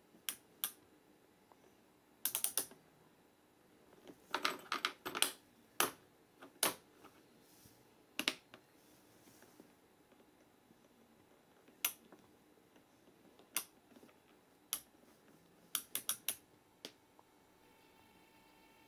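Irregular sharp mechanical clicks, some single and some in quick clusters, from the switches and control handles of a homemade model-railway power pack being worked.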